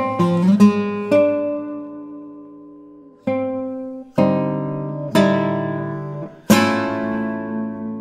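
Nylon-string classical guitar with a cedar top and African rosewood back and sides (a 2021 Pavel Gavryushov) played solo. A few quick notes open the passage, then five chords are struck one at a time, each left to ring and fade.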